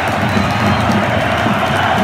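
A large football crowd singing and cheering together in the stands, a dense, steady wall of voices.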